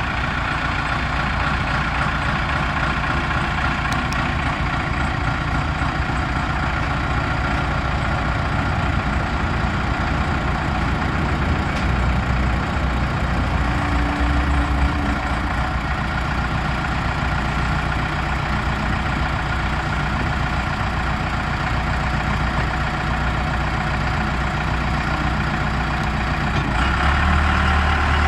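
Case 580L Series II backhoe's diesel engine running steadily at idle, picking up and getting louder near the end.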